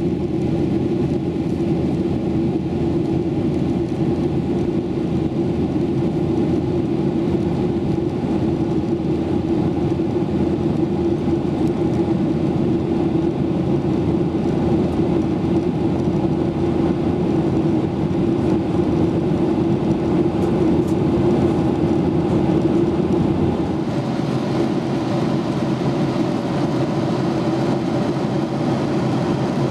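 Steady cabin drone of a Boeing 737 airliner in flight: jet engine and airflow noise with a strong low hum. Near the end the deepest rumble eases a little and the sound turns slightly brighter.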